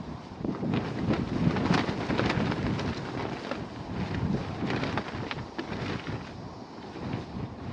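Strong gusty wind buffeting the microphone, a low rumbling rush that swells and eases, with frequent short sharp snaps and rustles.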